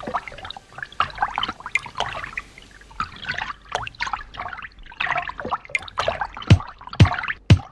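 Pool water splashing and bubbling around a swimmer moving through it, in irregular bursts. About six and a half seconds in, a thumping music beat starts at about two beats a second.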